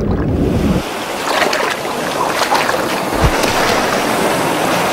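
A low rumble that cuts off suddenly under a second in, then the steady rush and splash of sea water at the surface, with scattered sharp splashes.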